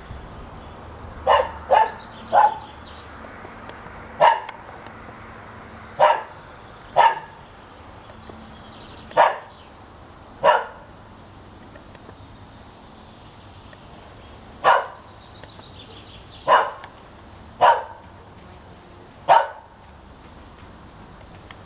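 A dog barking off and on, about a dozen sharp single barks at uneven intervals, some in quick pairs.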